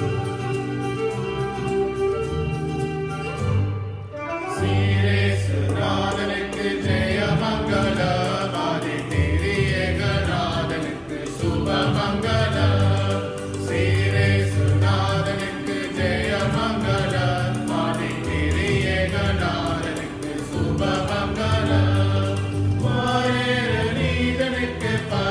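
Small mixed choir of four voices singing a hymn with instrumental accompaniment. The first few seconds are accompaniment alone, steady held notes, and the voices come in about four seconds in.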